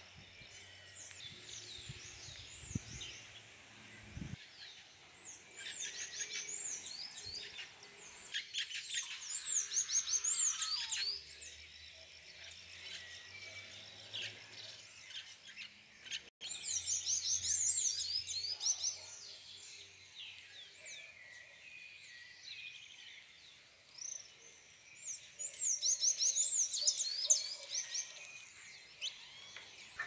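Small songbirds singing: rapid runs of high, arching chirps that come in several bursts a few seconds long, with quieter gaps between.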